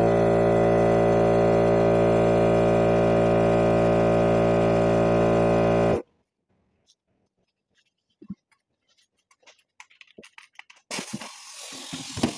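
A loud, steady hum made of many even tones, unchanging, that cuts off suddenly about six seconds in. A few faint metal clicks and taps follow as a ball joint press is set up on the U-joint, with some noise rising near the end.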